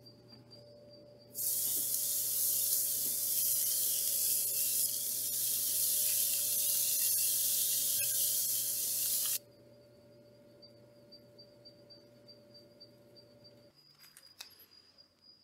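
Marinated Korean BBQ ribs sizzling on a hot kamado grill grate over charcoal: a loud, crackling hiss that starts abruptly about a second and a half in and cuts off about eight seconds later.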